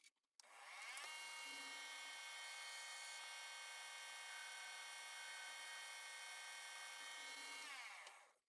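Small metal lathe's motor and chuck spinning up with a rising whine, running steadily for about seven seconds, then winding down and stopping near the end. A click at the very start.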